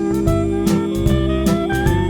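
Instrumental intro of a 1920s-style jazz song: a band playing over a steady beat, with a held note underneath and a melody line climbing step by step.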